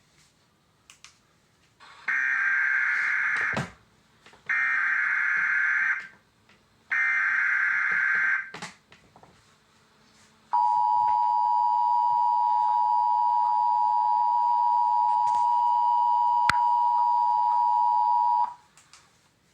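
Emergency Alert System header: three bursts of data tones, each about a second and a half long, then the EAS two-tone attention signal, a steady harsh tone held for about eight seconds.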